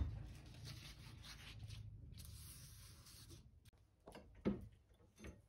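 Rusty steel hook scraping and sliding across a wooden tabletop, then two short knocks as the hook is set into a metal bench vise.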